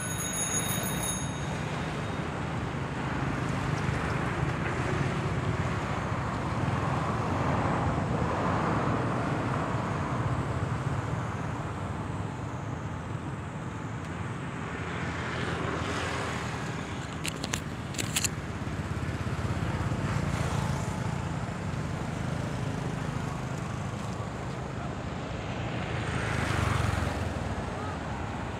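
Steady outdoor road-traffic noise, with vehicles passing and growing louder about a third of the way in and again near the end. A few short sharp clicks come just past the middle.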